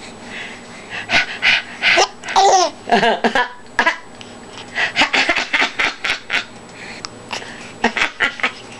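A baby laughing in short breathy bursts, with a pitched squealing sound about two to three seconds in.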